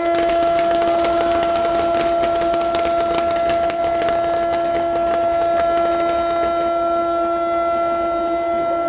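A siren holding one steady pitch, with dense crackling over it that thins out after about six seconds.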